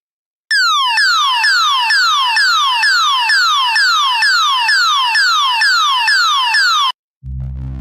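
Synthesized sci-fi sound effect: an electronic tone that sweeps down in pitch, repeated about twice a second like a pulsing alarm, which cuts off suddenly. Near the end a low electronic hum starts.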